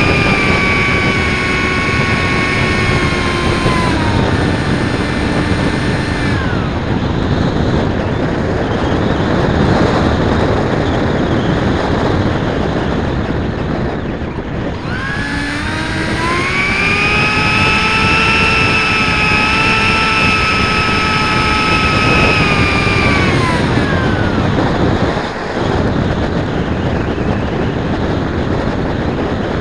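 Onboard sound of an RC Zephyr V-70 flying wing's electric motor and pusher propeller, heard from a camera on the airframe. The motor whine falls as the throttle comes back in the first few seconds, leaving only wind rushing past. About halfway through the whine rises again, holds steady for several seconds, then winds down about three-quarters through, and wind noise alone remains.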